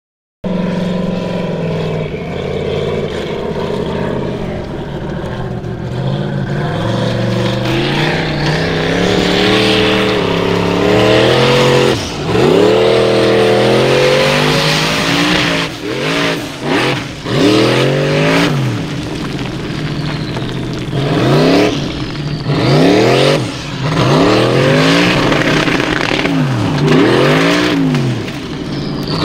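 Formula Offroad buggy's engine at full race power, revving hard. It runs fairly steadily at first with a wavering pitch, then from about halfway through the revs shoot up and drop again over and over in quick, sharp swings.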